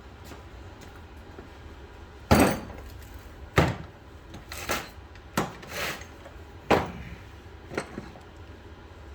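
A string of about seven sharp knocks and clatters of hard objects, irregularly spaced, the loudest a little over two seconds in, with a short scrape near the middle.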